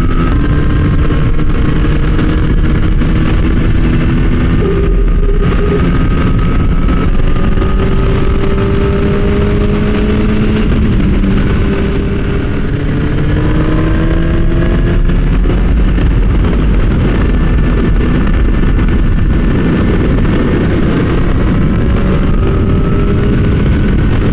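Kawasaki ZX-10R's inline-four engine running at road speed under a heavy rush of wind noise. Its note climbs slowly in pitch in several stretches and eases briefly about twelve seconds in.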